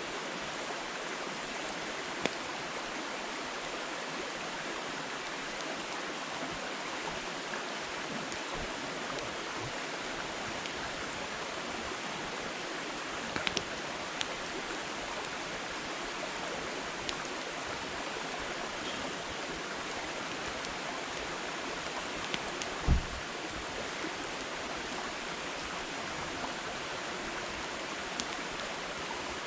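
Wood fire burning, with sparse sharp crackles and pops over a steady rushing hiss; the loudest pop comes about three-quarters of the way through.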